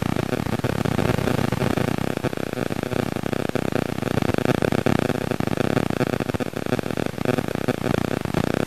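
Car engine running at idle, a steady loud mechanical noise.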